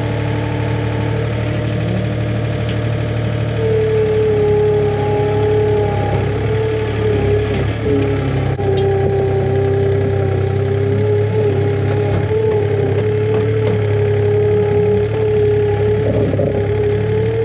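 Farm tractor engine running steadily at a working speed, with a whine that comes in about four seconds in and wavers slightly in pitch.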